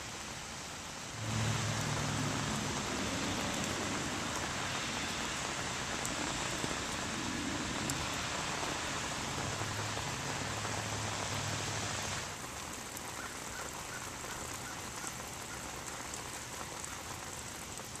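Steady rain falling on pavement. The rain grows abruptly louder about a second in, with a low hum underneath, and drops back just as abruptly about twelve seconds in.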